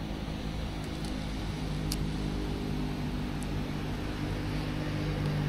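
A steady, low, engine-like hum, with a few faint high ticks over it.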